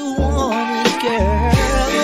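1990s R&B song over a hip-hop beat, with deep bass hits under a melodic line.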